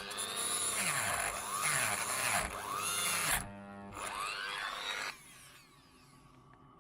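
Dremel-type rotary tool cutting into a wiper arm corroded onto its spindle, its motor whine repeatedly dipping and rising in pitch as the cutter bites and eases off. It stops about five seconds in.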